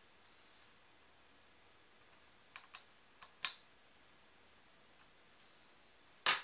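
A few scattered light metal clicks and taps as the small tool-post parts of a bench hand shaper are fingered and adjusted, the sharpest about three and a half seconds in, then a louder short clatter near the end as hand tools among loose bolts are picked up.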